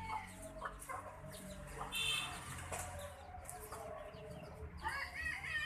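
Domestic chickens clucking in a run of short calls, with a busier cluster of calls near the end.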